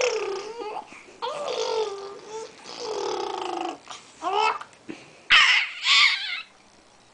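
Four-month-old baby babbling and cooing in a few high-pitched, drawn-out vocalisations, then two breathy, noisy bursts about five seconds in.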